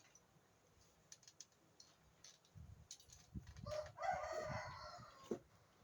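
Small child snoring softly in irregular low breaths, with scattered faint clicks. About four seconds in, a louder, higher drawn-out call lasting just over a second sounds in the background.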